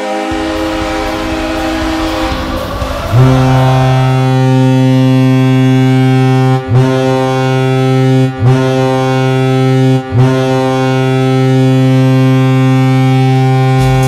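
The tail end of the New York Islanders' arena goal horn, giving way to a noisy wash after about two seconds. Then the Colorado Avalanche's deep goal horn sounds, very loud, in one long blast broken by three short gaps, so four blasts in all; these are the blasts that "suck".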